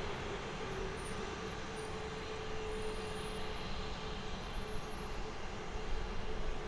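Airbus A321LR's turbofan engines running at low power as the jet taxis: a steady rush of engine noise with a faint steady tone.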